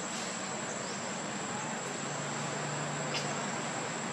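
Steady high-pitched drone of insects, one unbroken whine over a hiss of background buzzing.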